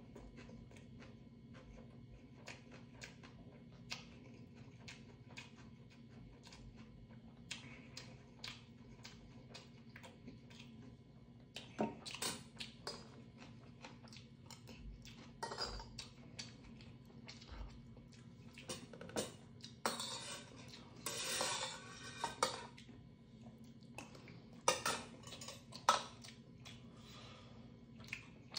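Mukbang eating sounds: metal spoon and chopsticks clinking against steel bowls while kimchi stew is chewed and slurped. Light clicks come first; from about twelve seconds in, the clinks get louder and several longer eating noises follow.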